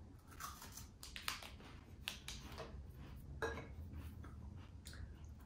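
Faint, scattered crunches and small clicks as a chocolate-coated hazelnut wafer bar is bitten and chewed.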